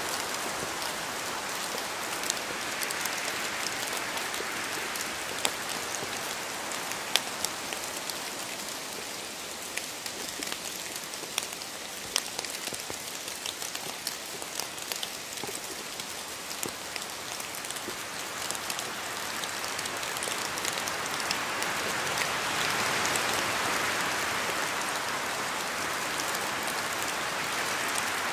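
Steady rain falling, with a dense hiss and many sharp drop ticks on a hard surface; it eases slightly around the middle and swells again toward the end.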